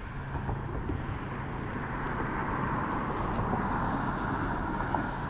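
Road traffic passing on the neighbouring highway bridge: a steady rushing noise over a low rumble that swells a little in the middle and eases off again.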